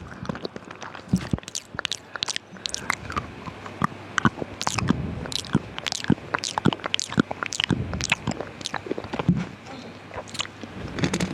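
Close-miked ASMR mouth sounds: wet tongue and lip clicks and smacks, several a second at an irregular pace.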